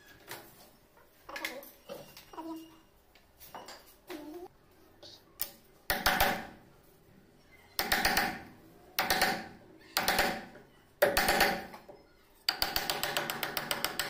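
Steel wood chisel pared by hand into the lock mortise cut in a wooden door edge: five short rasping strokes about a second apart, then one longer continuous scrape near the end, cutting the pocket that takes a mortise lock. Fainter handling scrapes and knocks come before them.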